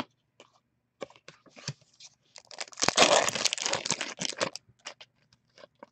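Light clicks of trading cards being shuffled by hand, then, a little before halfway, about two seconds of loud crinkling and tearing of a foil trading-card pack wrapper.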